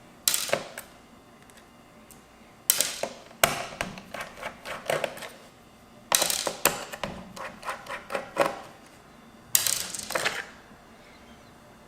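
HP G72 laptop being handled in several bouts of quick clicks, knocks and light rattles, with loose screws rattling inside the plastic case.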